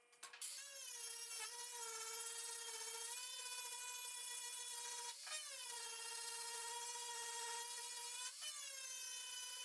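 High-speed power tool, the kind used for stripping paint off a truck door panel, whining at a steady high pitch. Its pitch sags briefly three times as it is pressed into the work.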